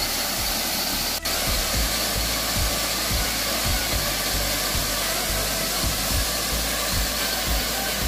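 Steady rush of a waterfall pouring into a rock pool, with irregular low rumbling underneath; the sound cuts out for an instant about a second in.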